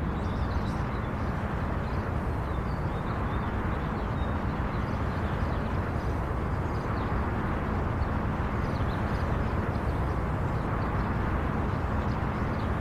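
Steady outdoor background ambience: an even low rumble with no distinct events in it.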